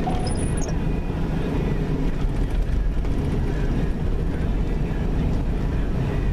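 Steady low rumble of a car driving: engine and road noise at a constant level with no break.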